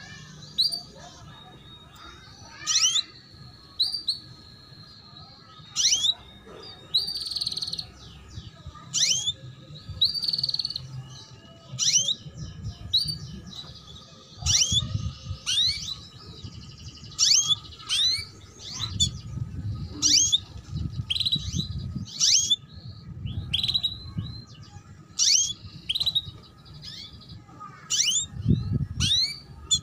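Female canary calling 'cuit cuit': sharp, high chirps that sweep downward in pitch, repeated about once every second or so, with a few short held notes between them.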